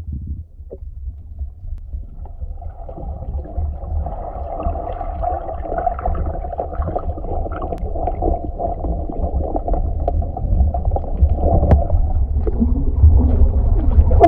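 Muffled underwater sound picked up through a GoPro's waterproof housing during a skin dive: a steady low rumble of moving water, with gurgling and scattered clicks setting in a couple of seconds in and growing louder.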